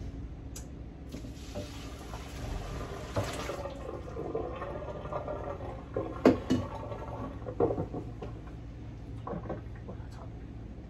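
Cooked pasta and its hot cooking water poured from the pot into a strainer in the sink: a rush of pouring water for a few seconds, then several clanks and knocks as the pot and strainer are handled.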